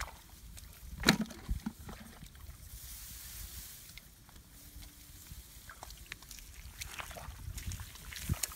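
Hands working in a muddy, water-filled hole among rice-field grass: faint sloshing and rustling, with a single sharp knock about a second in.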